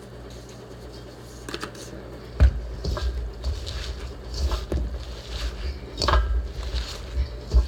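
Kitchen handling noises: a sharp knock about two and a half seconds in, then scattered clicks and low thuds as dishes and containers are handled on the counter.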